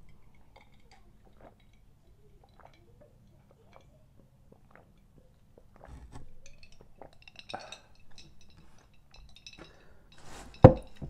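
Water being drunk from a glass jar, with small clinks of glass and faint gulps. Near the end comes one sharp, loud knock, the loudest sound.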